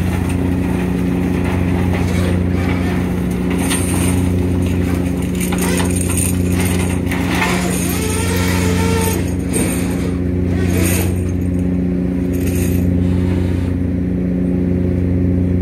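Purse seine fishing vessel's engine running with a steady, even drone. Brief bursts of noise rise over it now and then.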